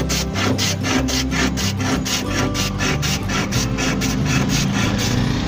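Block of ice scraped back and forth over the blade of a hand ice shaver: rasping strokes at about four a second, shaving ice. The strokes stop shortly before the end.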